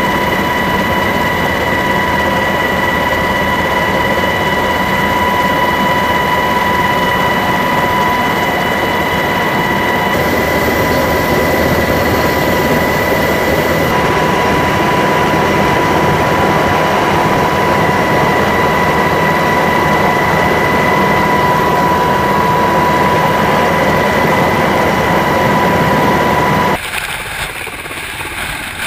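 Helicopter heard from aboard while it hovers: a loud, steady rotor and engine noise with a high turbine whine held at one pitch. About two seconds before the end it drops suddenly to a quieter rotor and wind noise.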